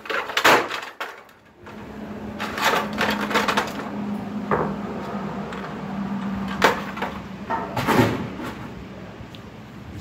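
Hard plastic pieces of a broken Keurig coffee maker cracking and clattering in a series of sharp hits: one about half a second in, a cluster a few seconds in, and sharp single hits near the middle and toward the end. A steady low hum runs under most of it.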